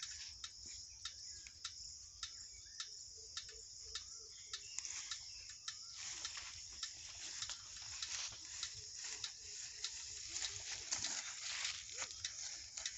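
A steady high chorus of insects, with scattered crackles and rustles of a jute sack being handled and opened, the rustling busier in the second half.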